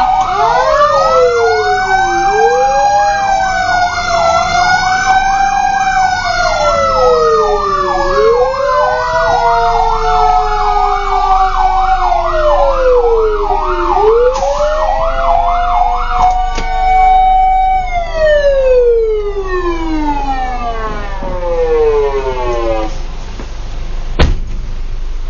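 Fire truck sirens: a fast warbling yelp sounds over a slower wail that rises and falls every few seconds. About two-thirds of the way through the yelp cuts off and the wail winds down in a long falling moan. A single sharp knock follows near the end.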